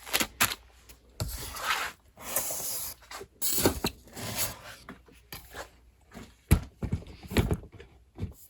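Sewing machine packaging being handled: irregular rustling and scraping of plastic and cardboard, with a few sharp knocks.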